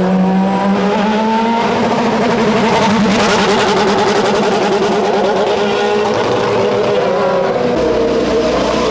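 Formula 1 car engines at high revs, the pitch climbing over the first second and a half and then holding with a wavering wobble as cars run by. The sound changes abruptly near the end.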